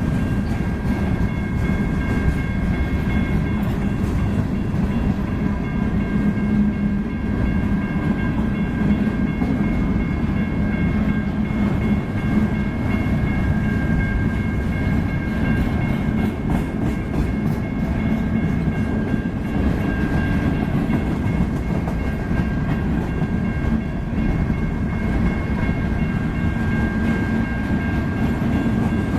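Freight train cars rolling past in a steady rumble, with a faint steady high ringing running through it.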